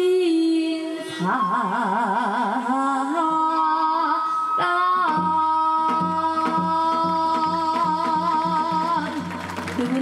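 Korean traditional (gugak) music: singing with wide vibrato and long held notes, joined about five seconds in by a steady rhythmic accompaniment beneath the held notes.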